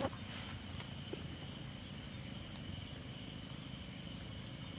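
Crickets chirping at night: short high chirps repeating evenly about three times a second, over a steady thin trill.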